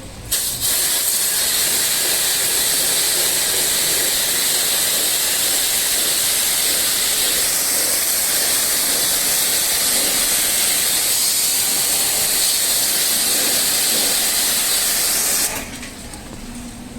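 High-pressure water jet spraying against an air conditioner unit during a jet-wash cleaning. It makes a steady, loud hiss that starts about half a second in and cuts off sharply shortly before the end.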